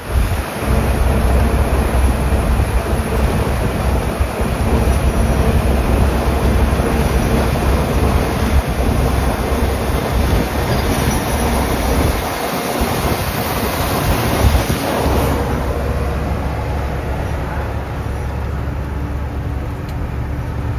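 Steady low rumble and rushing wind noise of a Tata 4830 16-wheel truck driving at highway speed, heard at the open cab window. The high hiss of the wind eases off about fifteen seconds in.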